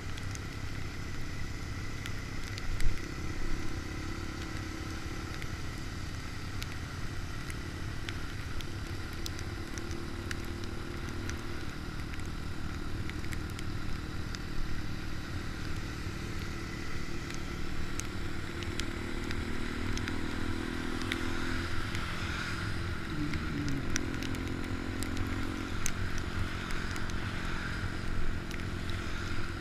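Small Honda Dax motorcycle engine running steadily while riding, over a dense low rumble, with scattered clicks and one sharp knock about three seconds in.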